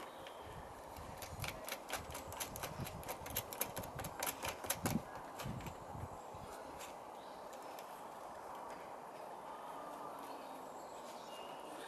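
Rapid, irregular clicking and light knocking of plastic being handled as a strap-on boss is fitted around a plastic downpipe. The clicks last about five seconds, then stop.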